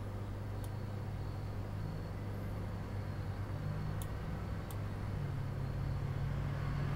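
Steady low electrical hum with faint hiss: the microphone's background noise, with three or four faint clicks.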